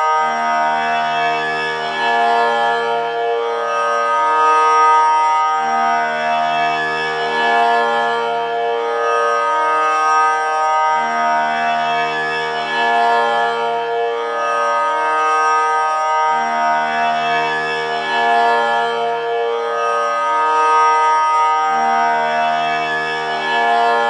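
Tanpura drone: its strings plucked one after another in a slow repeating cycle, coming round about every five and a half seconds, over a steady sustained hum of overtones.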